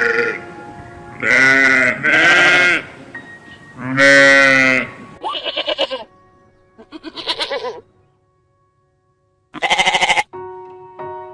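Repeated quavering bleats from livestock, about six calls, some broken into rapid pulses, with a short silent pause before the last one, over soft background music.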